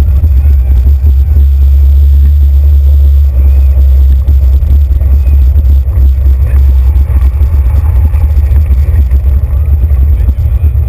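Loud, steady low rumble of a bicycle rolling over paving, carried through a handlebar-mounted GoPro Hero 2 camera mount into the camera's microphone.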